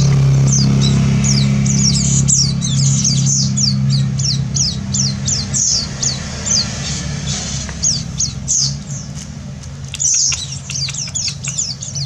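White-eye (pleci) nestlings begging as they are hand-fed, a rapid stream of high, thin, downward-slurred chirps. A low steady hum sits under them and fades over the first half.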